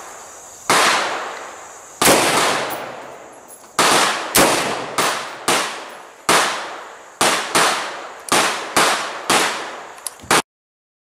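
AR-15 rifle shots, about a dozen in an uneven string, each sharp crack trailing off in a long echo. The sound cuts off abruptly near the end.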